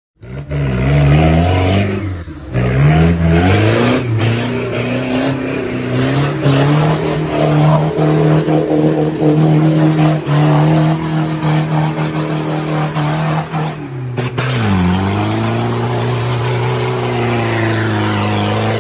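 Off-road 4x4 vehicle's engine revving hard under load. The pitch dips about two seconds in, then climbs and holds high for about ten seconds. It drops again briefly around fourteen seconds in and rises once more before cutting off.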